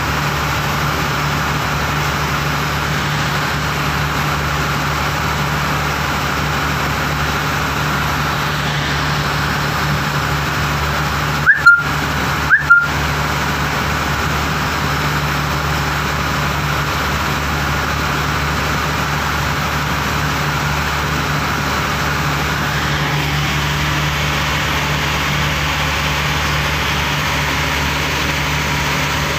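Pump boat's engine running at a steady drone, with water rushing past the hull. Just before halfway, two short, loud rising chirps about a second apart cut through.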